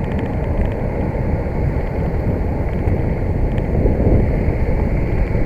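Wind buffeting the microphone of a camera riding on a moving bicycle: a steady low rumble, with road traffic mixed in underneath.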